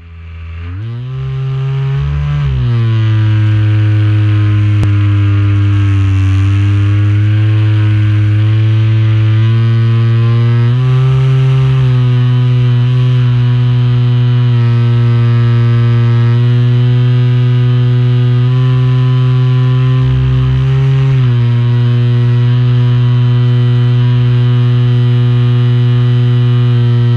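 RC airplane's motor and propeller running at full power, heard from on board: a loud, steady drone that fades in over the first couple of seconds. Its pitch dips slightly about two seconds in, climbs about eleven seconds in, and dips and recovers around twenty seconds in as the plane works against the wind.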